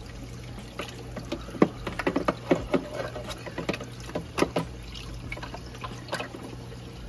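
Water splashing in a reef tank sump as a hand places a carbon bag in the flowing water, a run of short splashes from about a second in until near the end. Under it the sump water runs steadily, with a constant low hum.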